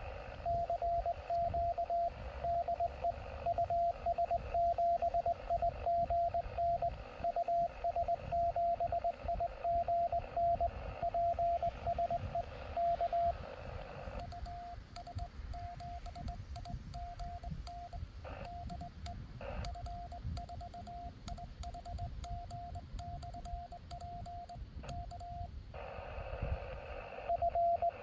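Morse code (CW) on an amateur HF transceiver's speaker: a station calling CQ, heard as a keyed, steady-pitched tone over band hiss. About halfway the hiss drops out as the operator transmits his own reply, heard as sidetone with faint paddle clicks, and near the end the hiss returns with the other station's answer starting.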